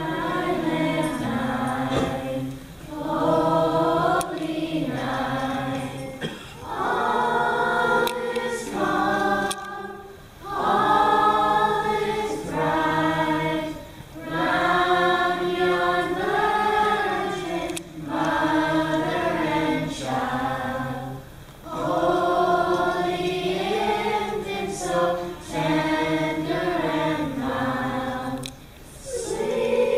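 Choir singing a song together, in phrases of about two seconds each with short breaks for breath between them.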